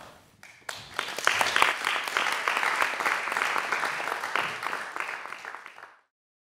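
Applause, many hands clapping, starting about a second in and cut off abruptly near the end.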